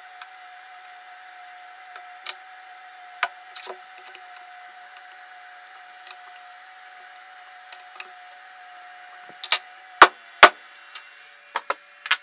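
Metal clicks and knocks as a steel plate is set and clamped in a steel machine vise, a few scattered at first and a cluster of louder knocks in the last few seconds, over a steady machine hum.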